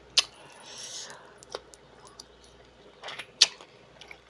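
Close-up mukbang eating sounds: a few sharp clicks and clacks, with soft rustling and smacking in between.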